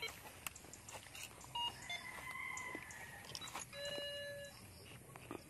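Footsteps and rustling through undergrowth with scattered clicks, a faint bird call around two seconds in, and a short electronic beep from the metal detector a little before four seconds in.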